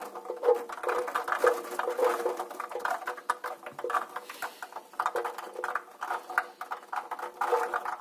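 Many green peas tumbling and pattering against the perforated stainless-steel drum of a front-loading washing machine as the drum turns: a dense run of small clicks and rattles with a faint squeaky tone under it.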